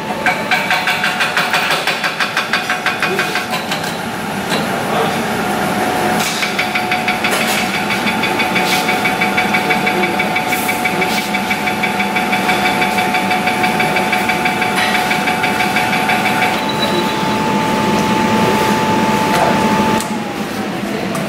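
Manual knee milling machine slot-milling galvanised steel pipe with a 6 mm four-flute high-speed-steel end mill, taking a full-depth cut in a single pass: a steady motor whine under the rhythmic sound of the cutter in the steel. Near the end the whine falls in pitch as the machine winds down.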